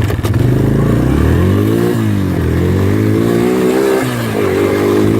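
Small four-wheeler (ATV) engine running hard, its pitch rising and falling several times as the throttle is opened and eased, with a short dip about four seconds in.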